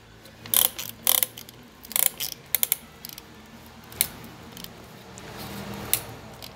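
Piston ring compressor being worked around a piston, its ratchet clicking in a handful of separate, irregular clicks.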